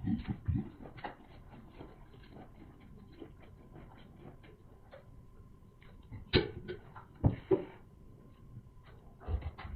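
Close-miked eating of boiled sea snail meat: many small wet mouth clicks and smacks while chewing, with a few louder knocks near the start and about six and seven seconds in.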